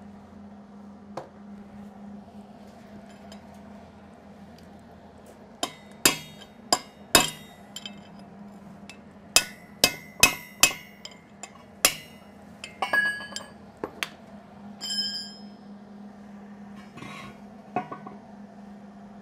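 Sharp metal-on-metal strikes, about ten of them, on a steel truck wheel hub as the welded, stuck bearing race is knocked out; a little later the loose race gives a few ringing metallic clinks, then some lighter knocks.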